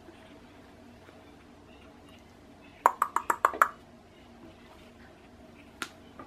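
A quick run of about six sharp clicks a little under three seconds in, then a single click about two seconds later.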